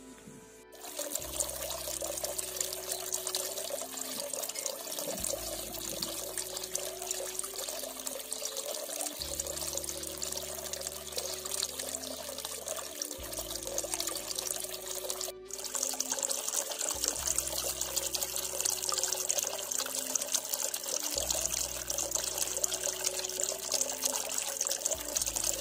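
Water pouring from metal pipe spouts into a stone trough, a steady splashing stream. It breaks off for an instant a little past halfway and comes back brighter.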